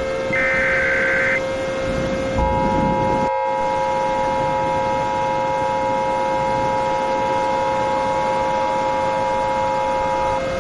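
The last Emergency Alert System SAME header burst: one second of warbling digital data tones. About a second later comes the two-tone EAS attention signal, two steady tones sounding together for about eight seconds, with a constant hum underneath.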